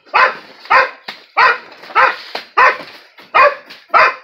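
Dog barking over and over at a skunk, about seven loud, sharp barks evenly spaced, roughly one every half second or so.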